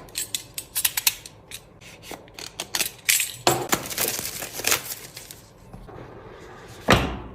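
Smartwatch retail box being opened by hand: a run of small clicks and ticks, then a stretch of cardboard and plastic rustling and scraping, and a dull thump near the end as the box or its parts are set down.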